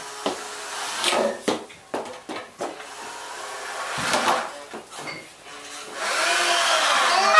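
Scattered knocks and clunks of wood being handled, then a steady rushing noise that swells about six seconds in.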